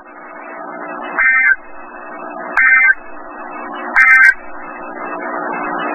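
Emergency Alert System end-of-message data bursts over NOAA Weather Radio: three short, chirpy two-tone digital bursts about a second and a half apart, marking the end of the severe thunderstorm watch alert. Underneath is a steady hum that grows louder.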